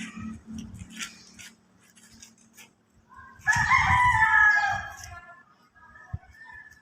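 A rooster crowing once, a single call of under two seconds about halfway through, preceded by a few faint clicks and a low rumble dying away.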